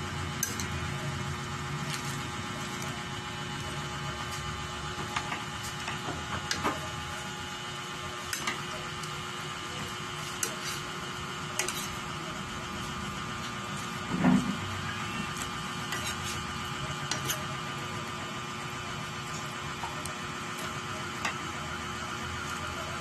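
Metal spoon clicking and scraping against a stainless steel pan while stir-frying greens and ground meat, over a steady hum. One louder knock comes about fourteen seconds in.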